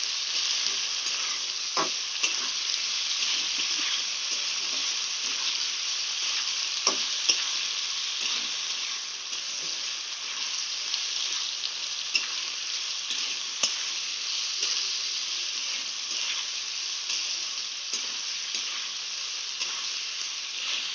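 Diced potatoes with green chillies and tomato sizzling in hot oil in a metal kadhai while they are pan-roasted, stirred with a metal spatula that now and then scrapes and clicks against the pan.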